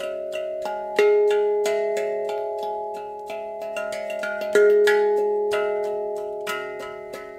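Steel hand drum played with the fingertips: a flowing run of tapped notes, each ringing clearly and fading slowly. Two stronger strikes fall about a second in and just past the middle.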